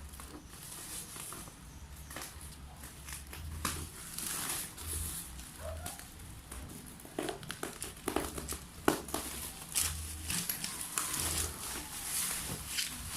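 Plastic packaging and bubble wrap crinkling and rustling in irregular bursts as a parcel is unwrapped by hand.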